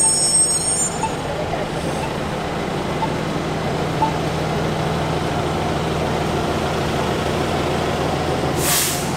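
Trolley-style city bus idling close by, its engine a steady low hum. A high squeal fades out in the first second, faint beeps sound about once a second for the next few seconds, and a short hiss of air comes near the end.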